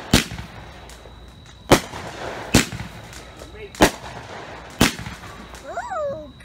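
A Brothers Matrix Pyro 16-shot firework cake firing: five sharp bangs, about a second apart, as its shots go off.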